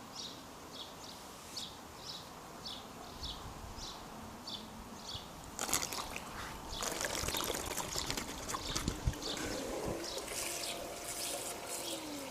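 Water splashing and trickling that starts suddenly about halfway in and keeps going, over a regular high-pitched chirping.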